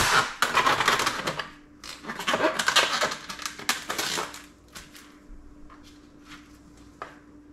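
Plastic film over a tray of hamburger patties being pierced and torn open, crinkling and rustling in two spells over the first four seconds, then a few light taps and clicks.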